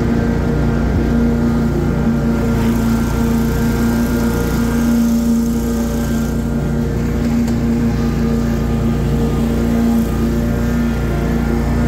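Ride-on lawn mower engine running steadily at mowing speed, with a strong even hum.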